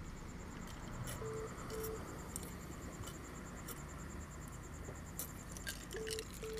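Crickets chirping in a steady, even pulse. A pair of short low beeps from the phone line, heard while the call waits on hold, comes about a second in and again near the end.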